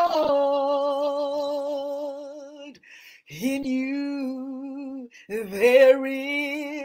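A woman singing a slow gospel worship song unaccompanied, holding three long notes with vibrato, with a short breath between each.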